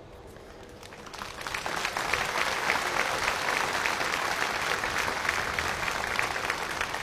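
Audience applauding, a dense patter of many hands clapping that swells about a second in and starts to die down near the end.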